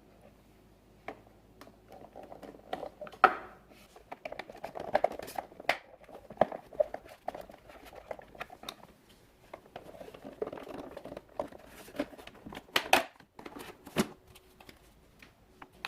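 Plastic housing and parts of a Cuisinart coffee maker being handled and pried apart: irregular clicks, knocks and scraping, with several sharper clicks scattered through.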